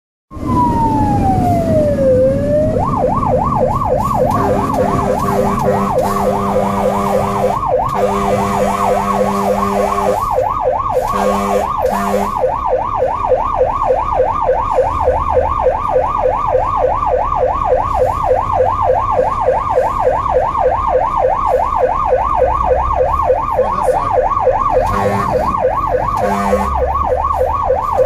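Fire engine's siren heard from inside the cab: a falling wail at first, then a fast up-and-down yelp that keeps going. A low horn sounds over it in several blasts, some long ones early on and two short ones near the end.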